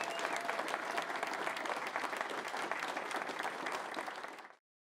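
A roomful of people applauding with many hands clapping, fading out near the end.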